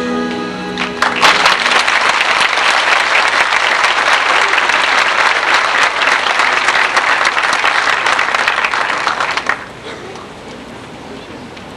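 The last held notes of a song fade out, and about a second in an audience breaks into steady applause. The applause cuts off fairly suddenly about two seconds before the end, leaving a quieter steady hiss.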